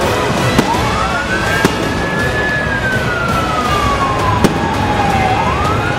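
A siren wails over a loud, steady din. Its tone rises quickly, holds, sinks slowly over about three seconds and rises again near the end. Three sharp bangs break in.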